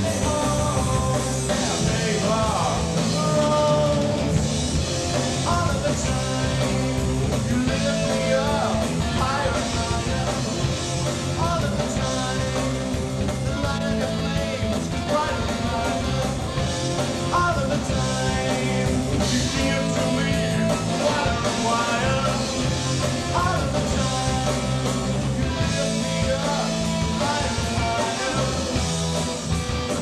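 Live rock band playing a song: drum kit, electric guitars and bass, with a male voice singing over them.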